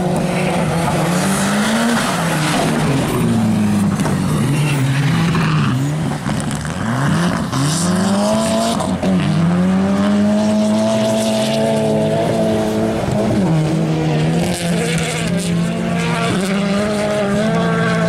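Turbocharged four-cylinder rally car engines (Mitsubishi Lancer Evo, Skoda Fabia R5) revving hard as the cars slide round corners on ice. The engine note swings up and down with throttle and gear changes, then is held high and steady for several seconds from about the middle.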